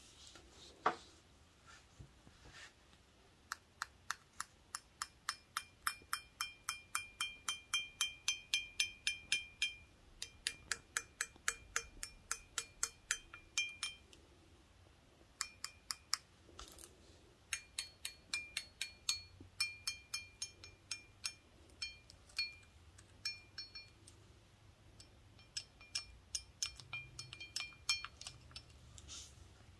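Toothpicks on gloved fingertips tapping an empty glass beer stein in quick runs of about four taps a second, each tap a light click followed by the glass's ringing tone. The runs break off briefly about halfway through and again near two-thirds through.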